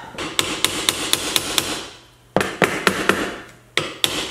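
Hammer tapping on the bolt at a wiper arm's pivot to loosen the arm from its shaft. Quick metallic taps come about four a second, in three runs with two short pauses.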